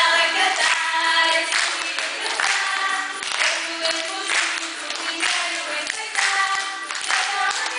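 A group of children and adults singing a song together, with a beat struck about once a second.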